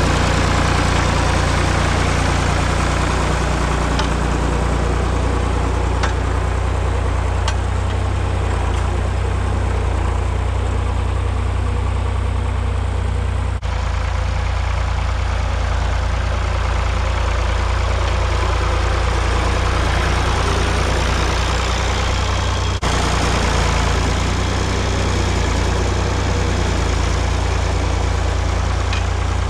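Tractor engine running steadily while working the ground to turn up sweet potatoes.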